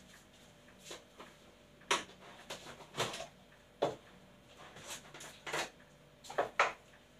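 Irregular knocks and clicks of kitchen items being handled, about nine sharp taps spread over a few seconds, a few of them in quick pairs.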